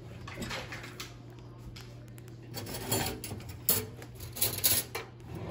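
Plastic piping bag crinkling and rustling in the hands as it is squeezed to pipe frosting, in several short bursts, over a steady low hum.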